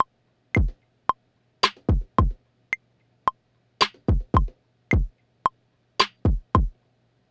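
Drum-machine beat played live on the pads of a Native Instruments Maschine controller: deep kicks that drop in pitch and a few sharp snare-like hits, over a metronome click ticking about twice a second with a higher click on each bar's first beat.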